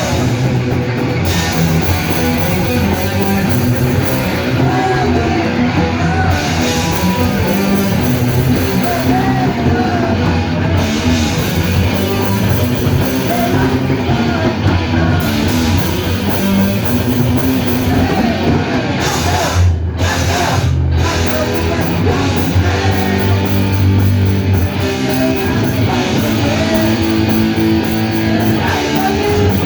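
Live punk/metal band playing loud and dense, with distorted electric guitars, drum kit and sung vocals, and two short breaks in the high end about twenty seconds in.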